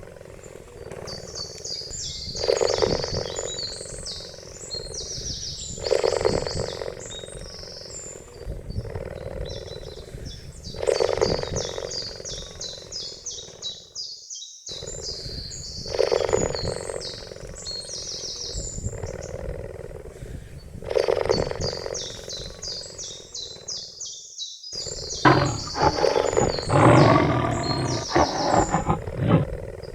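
Cheetah calling in low, repeated calls a few seconds apart, over steady high-pitched chirping in the background. Near the end comes a louder, longer call.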